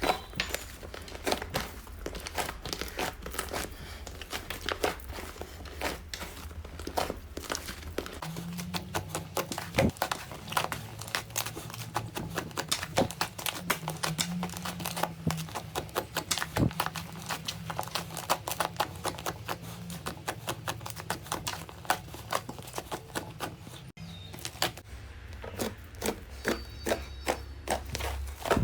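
Slime being squeezed and kneaded by hand, giving a dense, irregular run of small crackling clicks and pops. The low hum underneath changes about 8 seconds in and again near 24 seconds.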